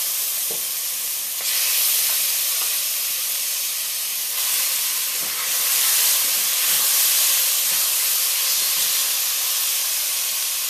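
Marinated oxtail pieces sizzling hard in caramelized brown sugar in a heavy pot on high heat, the browning step of a Caribbean stew. The hiss surges louder a couple of times as more pieces go in and are stirred, with a few light spoon knocks.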